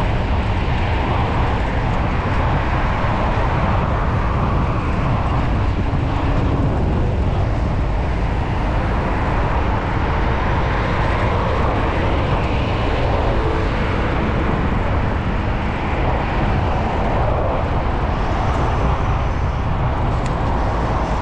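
Steady wind rush buffeting the microphone while riding a road bicycle at speed, a dense low rumble with no break.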